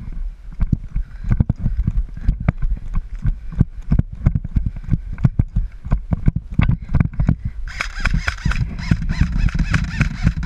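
Running footsteps crashing through dry leaf litter and brush, a fast run of heavy thuds and snapping twigs. About eight seconds in, a louder, higher sound with a wavering pitch joins in for the last couple of seconds.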